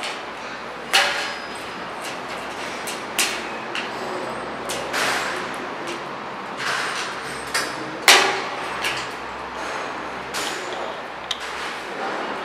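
Irregular metal clanks and knocks as the sheet-metal parts of a packaging machine's tail frame are handled and fitted together, with a sharp knock about a second in and the loudest one about eight seconds in, over a steady background hiss.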